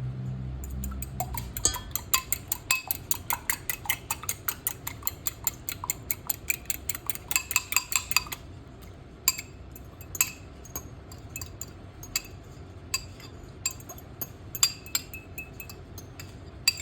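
An egg being beaten in a bowl: a utensil clinks rapidly against the bowl, about five strokes a second for some six seconds, then a few scattered clinks as the beating stops.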